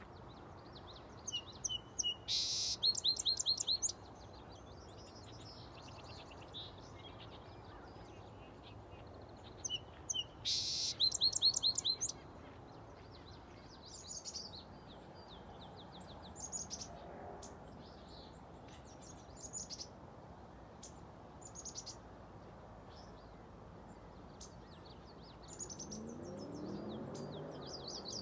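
Songbirds singing and chirping, with two loud songs of rapidly repeated notes about two seconds and about eleven seconds in, and softer calls in between.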